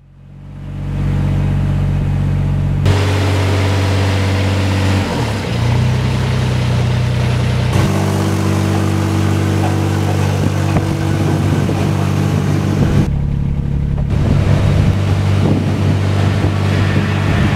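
Engine of a Mighty Crane CR335D mini crawler crane running steadily, fading in over the first second. Its pitch and tone change abruptly several times.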